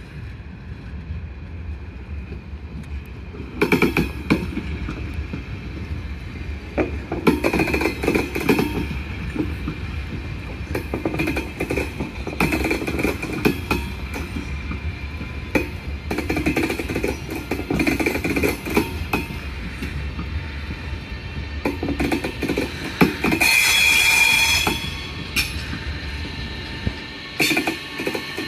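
Double-deck InterCity train passing, pushed by a DB class 146 electric locomotive: its wheels clatter over rail joints and points in repeated surges, roughly every second or so, over a steady low rumble. A louder stretch with a high steady tone comes near the end.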